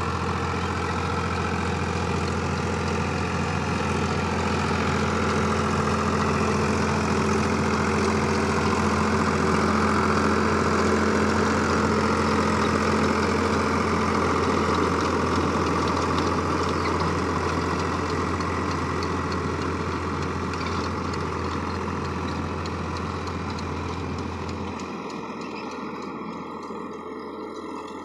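Powertrac 439 Plus tractor's diesel engine running steadily under load while it drives a 66-blade rotavator through the ground. It grows louder toward the middle and fades over the last few seconds.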